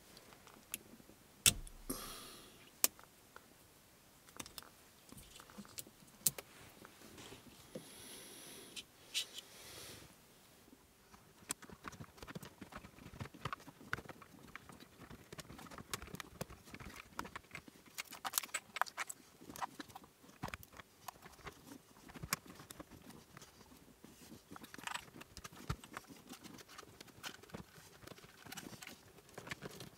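Irregular plastic clicks and knocks from hands working on a Jaguar XKR's dashboard: prying open a wiring connector, then fitting the instrument cluster back into the dash. A faint steady hum sets in about a third of the way through.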